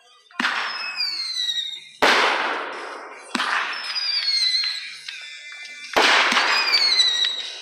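Consumer aerial fireworks going off: five sharp bangs at irregular intervals, two of them close together near the end, each followed by a hissing tail and high whistles that fall in pitch.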